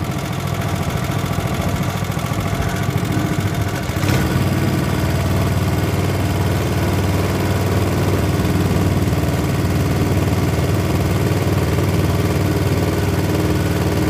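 Small 3.5 hp gasoline engine mounted inside a wooden rowboat, running steadily as it pushes the boat. About four seconds in, it gets a little louder and stays at that level.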